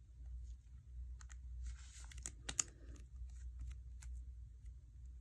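Faint light clicks and plastic rustles of a trading card being slid into a soft plastic sleeve and handled, over a low steady hum.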